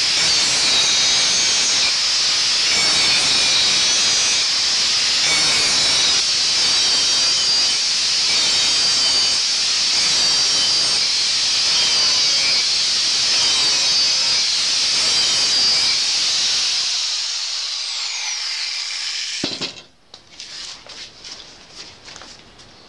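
Handheld angle grinder grinding a 52100 bearing-steel parang blade: a loud, steady hiss of the abrasive disc on the steel. Near the end the grinding stops and the disc spins down with a falling whine, followed by a few light knocks.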